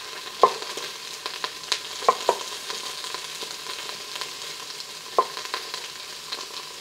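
Quartered mushrooms sizzling steadily in hot olive oil in an Instant Pot's stainless steel inner pot on high sauté, browning. A stirring utensil knocks sharply against the pot several times as they are stirred.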